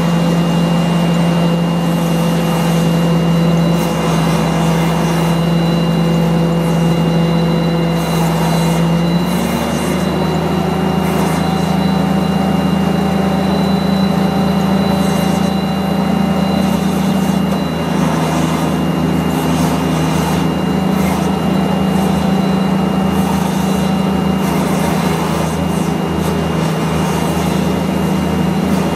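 Aircraft pushback tug's engine running steadily under load as it tows the airliner, its pitch stepping up about nine seconds in. A steady high whine sits over it.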